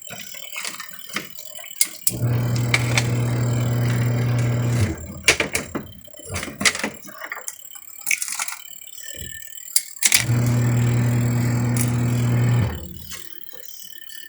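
Twin tub washing machine's wash motor running in two short spells of steady hum, each about two and a half seconds, stopping and starting again as the new timer cycles the wash: the machine washing again after its defective timer was replaced. Scattered clicks and rattles come in between.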